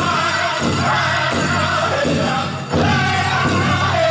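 Powwow drum group singing in unison over the beat of a big drum, with the leg bells of the chicken dancers jingling.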